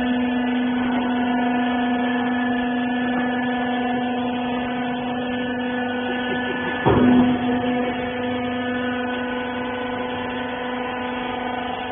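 Hydraulic baler's power unit, an electric motor driving a pump, running with a steady hum. About seven seconds in there is a short clunk with a brief louder surge.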